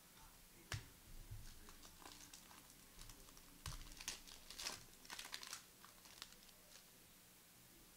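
Faint crinkling and light clicks of trading cards and foil pack wrappers being handled, in a scattering of short sounds that are busiest about four to five seconds in.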